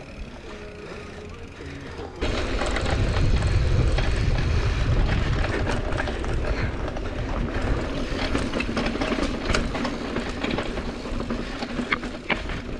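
Mountain bike rolling fast over a dirt trail, with tyre noise, rattling clicks from the bike and wind rumble on the handlebar camera's microphone. It gets suddenly much louder about two seconds in and stays loud.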